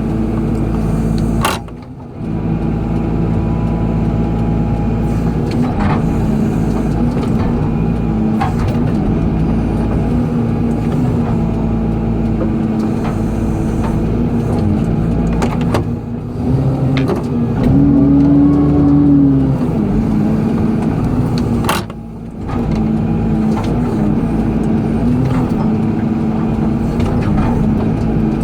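Excavator diesel engine running steadily during digging work, its pitch rising and swelling louder for a couple of seconds about two-thirds of the way through as the hydraulics are loaded. There is a sharp click near the start and another later on, each followed by a brief dip in the engine sound.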